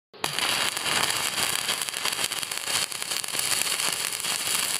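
CNC thermal cutting head cutting through sheet metal: a steady crackling hiss of the cut and its sparks, starting abruptly.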